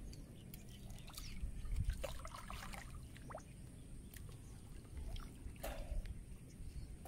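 Water sloshing and splashing, with a few short splashes and knocks about a second in, between two and three seconds in, and again near six seconds, over a steady low rumble.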